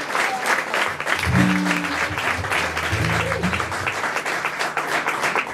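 Audience applauding, with an acoustic guitar's low strings plucked in two brief spells, about a second in and again about three seconds in.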